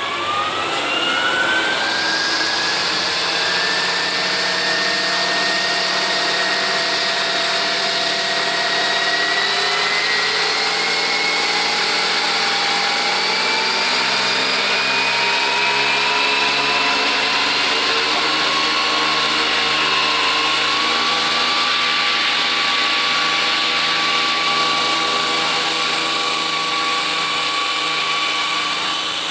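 Electric 700-size RC scale helicopter running up on the ground. The motor and drive whine climbs in pitch quickly over the first couple of seconds, keeps rising slowly for about a quarter of a minute, then holds steady as the rotor reaches speed.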